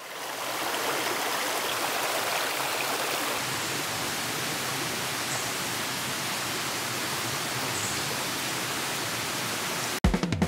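Steady rush of a forest stream pouring over a small weir, fading in at the start. Music with a drum beat cuts in suddenly near the end.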